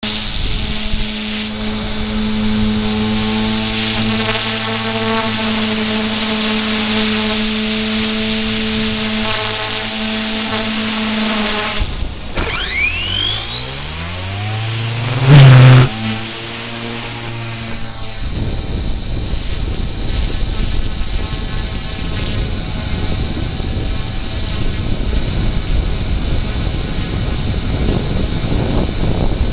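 Micro RC helicopter (E-flite Blade mCP X with an HP05 brushless main motor) running in flight, heard from the camera mounted on it: a steady high motor whine with a lower hum and rotor whir. About twelve seconds in the whine drops away and then sweeps steeply back up, loudest a few seconds later, before settling into a steadier whir.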